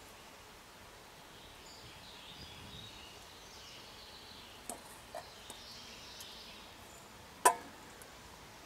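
A small gas canister stove burning with a faint, steady hiss, with a couple of soft clicks and one sharp tap near the end.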